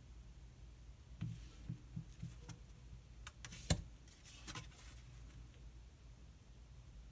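Thick glossy oracle cards being handled: a card slid off the deck and laid down on a wooden tabletop, a run of soft taps and rustles with one sharper card snap about halfway through.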